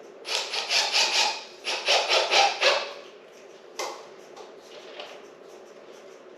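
A hand tool worked back and forth on wood or drywall in two quick runs of about five strokes each, followed by a single knock.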